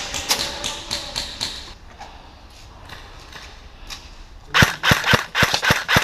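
Airsoft guns firing a rapid string of sharp shots, about four a second, starting about three-quarters of the way through, after a quieter stretch with a few faint clicks.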